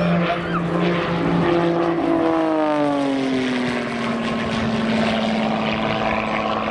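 Extra 330 SC aerobatic plane's six-cylinder Lycoming piston engine and propeller running in flight. The engine note falls in pitch from about a second and a half in to about four seconds, then holds steady.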